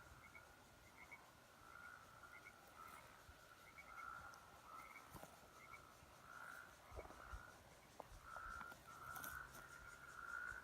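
A chorus of toads trilling, faint: several long trills at one pitch, overlapping and coming one after another.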